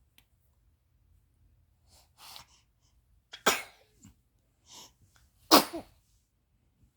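A person sneezing twice, about two seconds apart, the second sneeze the louder. Each sneeze comes after a quieter build-up breath.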